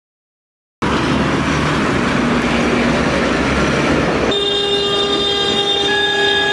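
Loud, steady noise of heavy machinery at a waste dump, starting suddenly about a second in. A few seconds later it changes to a steadier noise with a high whine over it.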